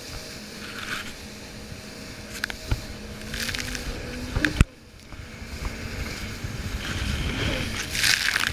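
Personal watercraft engine running steadily with water rushing along the hull. About four and a half seconds in, the hull slams into a wave with one loud thump, followed by splashing and hissing spray.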